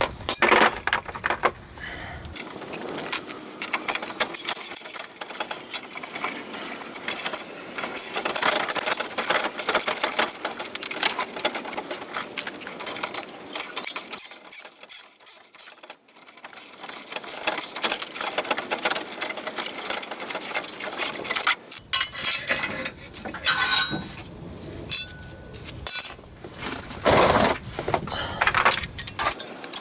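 Socket ratchet wrench clicking in fast runs, with clinks of sockets and metal, as the nuts on exhaust pipe clamps are turned.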